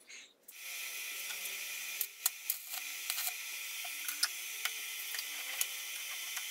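Power grinder working steel: a steady high-pitched grinding hiss that starts about half a second in, with a few sharp ticks and knocks over it.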